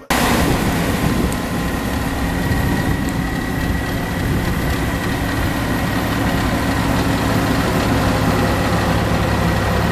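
Heavy diesel harvest machinery running steadily at constant speed, with a low engine hum under dense mechanical noise and a faint steady high whine.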